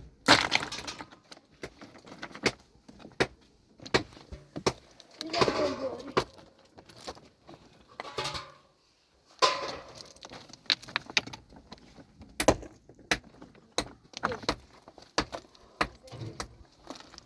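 Irregular knocks and clatter of hands-on work, scattered sharp clicks throughout, with short bursts of voices near the middle.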